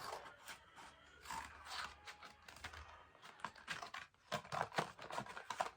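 Toy packaging being torn and crinkled open by hand: a quiet, irregular run of small rips and crackles.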